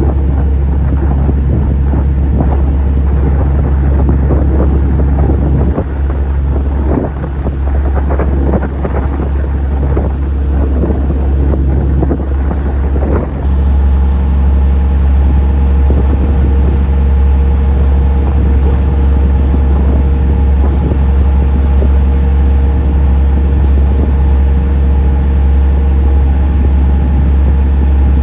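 Ferry engines droning steadily on board a roll-on/roll-off car ferry, a deep hum with steady tones. Wind gusts on the microphone in the first half; about halfway the sound changes abruptly to an even, smoother drone.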